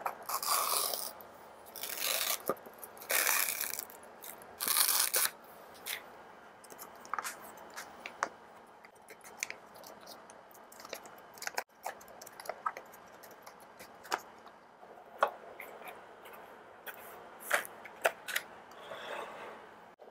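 Plastic film and packaging crinkling as a food bowl is unwrapped, in four loud crackly bursts over the first five seconds. Scattered small clicks and crackles of plastic lids and packets being handled follow.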